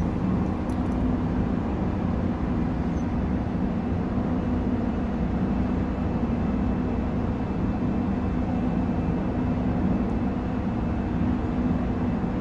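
Steady noise of city and highway traffic heard from high up, an even low wash with no single vehicle standing out.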